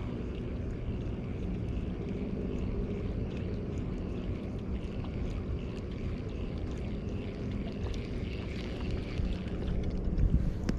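Water lapping and ticking against a small outrigger canoe over a steady low hum, with louder low knocks near the end.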